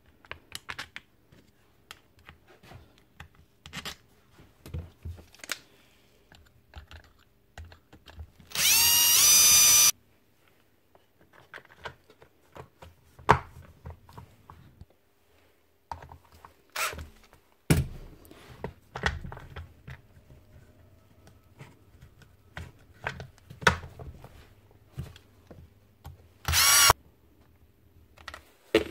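Power driver whirring up in two short runs, a longer one about a third of the way in and a brief one near the end, as screws are driven to bolt the hammer drill's casing back together. Light clicks and knocks of metal parts and screws being handled come in between.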